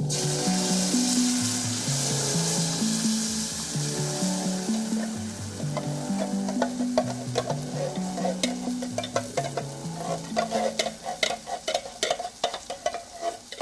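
Food sizzling and frying in a pan, starting abruptly. From about halfway through, a utensil stirs and taps quickly against the pan. Background music plays throughout.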